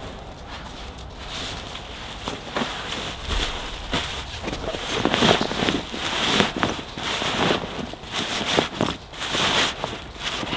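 Rustling and swishing of a puffy jacket's nylon shell as it is handled and folded, in short irregular swishes that grow louder and busier from about four seconds in.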